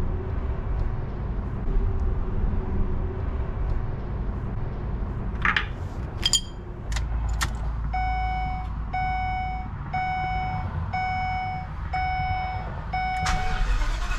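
Ford E-450 dashboard warning chime, six evenly spaced beeps about once a second with the ignition on and the engine off. It stops near the end, followed by a rush of noise.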